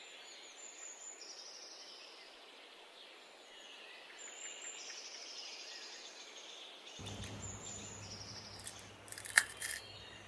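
Birds chirping and calling in a series of short high calls. About seven seconds in, a low room hum joins them, and near the end there are a few sharp clicks, the loudest sounds here.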